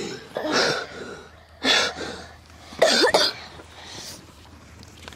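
A boy coughing, with short vocal noises: three loud bursts about a second apart, close to a clip-on microphone.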